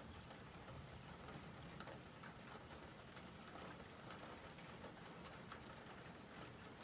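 Faint steady rain, with scattered drops ticking.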